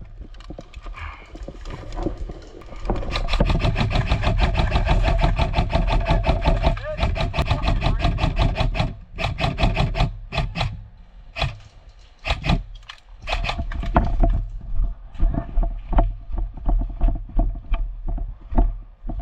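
Airsoft guns firing: a rapid rattle of full-auto shots for about six seconds, then scattered single shots and short bursts, over low wind rumble on the microphone.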